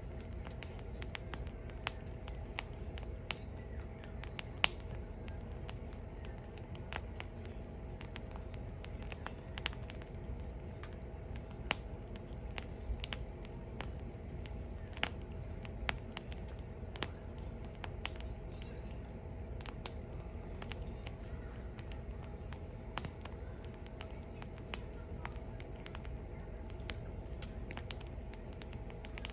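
Firewood burning, crackling with irregular sharp pops and snaps over a steady low rumble.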